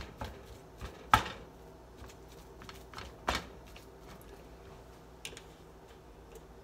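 A spatula scraping and knocking against a nonstick skillet as ground sausage is broken up in the pan, with two sharper knocks about a second and three seconds in.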